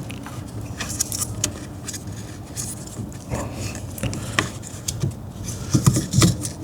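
Small metal parts and hand tools clicking, clinking and scraping against each other while a steering column is reassembled, with a couple of louder knocks near the end.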